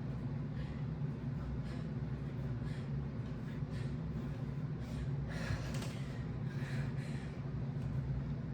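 A woman's quick, hard breaths in a steady rhythm as she does straight-leg raises from a dead hang, a couple of breaths louder past the middle, over a steady low hum.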